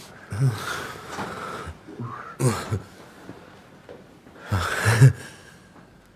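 A person breathing heavily, with three short breathy vocal sounds about two seconds apart.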